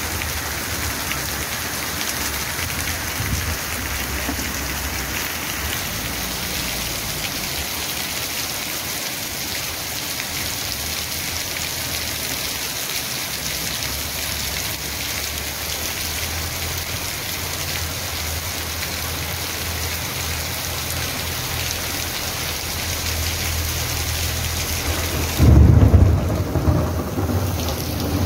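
Steady heavy rain falling on concrete and bare ground, with water gushing from a wall drain spout onto the sidewalk. Near the end, a loud low rumble breaks in for a couple of seconds.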